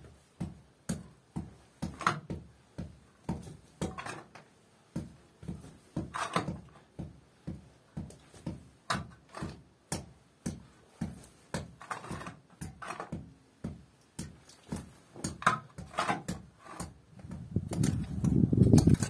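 Small hand hoe and pick hammer chopping into dry earth and stones of a cave floor: repeated short strikes, about one to two a second. A low rumble builds near the end.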